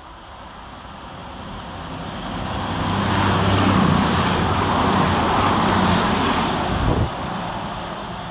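A CrossCountry Voyager diesel train passes through the station at speed. Its engine hum and wheel-and-rail noise build to a peak as it goes by, then fade as it draws away, with a short thump about seven seconds in.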